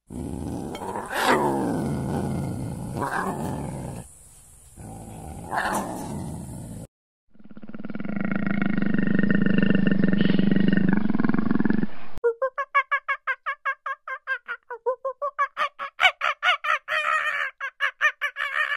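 Big cat roaring and growling in two separate calls, the second a long low rough roar. About twelve seconds in, it cuts to a fast run of short, high, pitched calls at about four or five a second.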